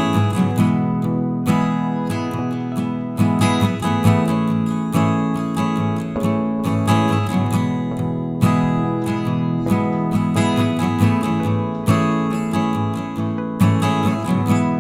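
Background music of strummed acoustic guitar chords with a steady, even rhythm.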